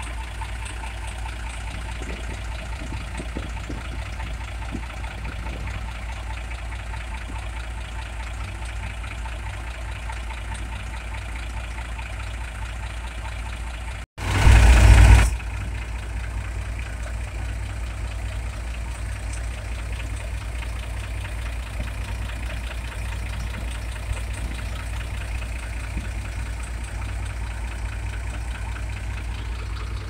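Tractor engine running steadily in a flooded rice paddy. About halfway through, the sound drops out for an instant, then comes a loud rumble lasting about a second.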